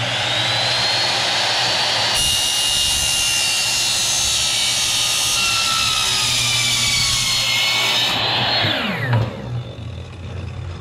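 Miter saw running and its blade cutting through a metal angle strip, a loud high-pitched screech from about two seconds in until about eight seconds. Then the motor is switched off and the blade winds down with falling pitch.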